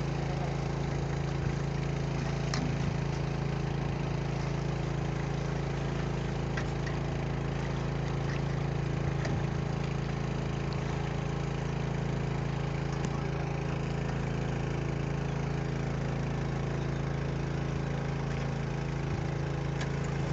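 A boat's small motor running steadily at one constant speed, a low, even hum with no change in pitch.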